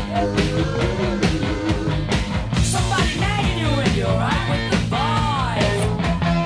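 Rock music soundtrack with a steady drum beat and held, sliding melodic notes.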